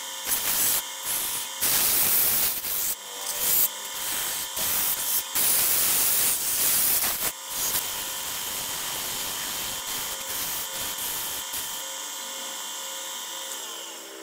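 Wood lathe running with a steady motor hum while sandpaper held by hand hisses against the spinning hardwood table leg. The hiss comes in surges during the first half, then settles into a steadier rubbing sound that fades near the end.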